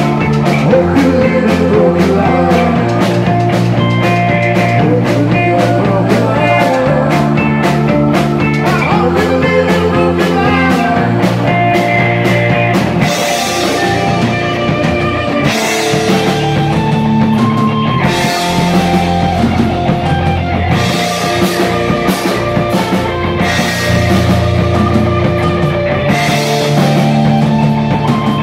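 Live rock band playing: electric guitars, bass guitar, keyboards and drum kit. From about halfway through, cymbal crashes come roughly every two and a half seconds.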